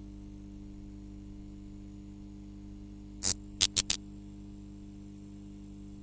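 Steady electrical hum with several even overtones, broken a little past the middle by a quick run of four sharp clicks or crackles.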